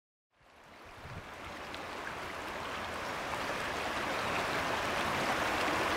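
Fast-flowing river rushing over rapids, fading in from silence and growing steadily louder.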